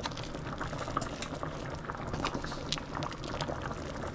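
Thickened garlic butter sauce bubbling in a pan at a simmer: a steady bubbling with many small irregular pops.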